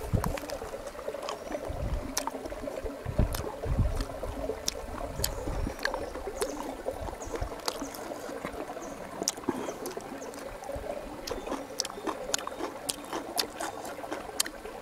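Close-up eating sounds: a man chewing and tearing roast tandoori chicken, with many small sharp clicks and smacks and a few low thumps in the first half, over the steady trickle of a shallow stream.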